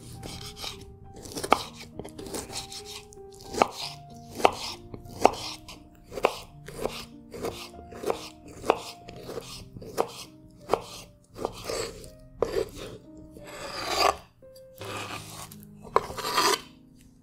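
Kitchen knife dicing tomato on a bamboo cutting board: a steady run of sharp knocks of the blade on the wood, about one a second. Near the end a longer scraping sound as the diced tomato is slid off the board.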